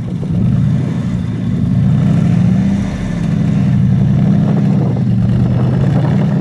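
Off-road vehicle engine running at high revs, easing off briefly about three seconds in before picking up again.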